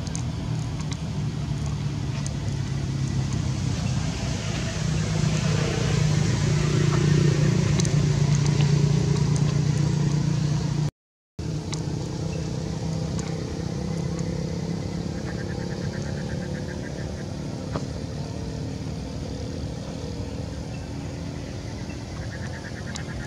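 A motor vehicle's engine running steadily, swelling louder for several seconds and then broken by a sudden half-second dropout, after which a quieter engine hum goes on.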